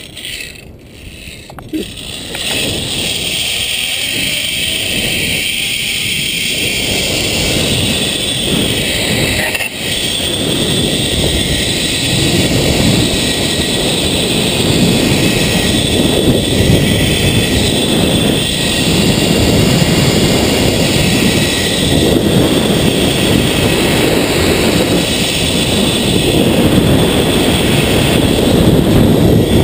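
Zipline trolley running along the steel cable, its pulleys whirring, with wind rushing over the camera's microphone as the rider picks up speed. A few clicks at the launch come first; the rush sets in about two seconds in and grows louder.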